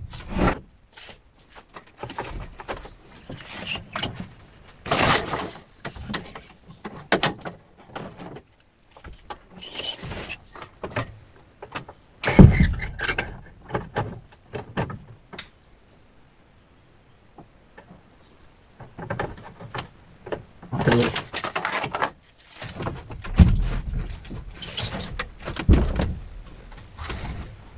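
Building materials being handled and fitted by hand during shelter construction: irregular knocks, rattles and rustles, with a few heavier thumps, one about halfway and several near the end.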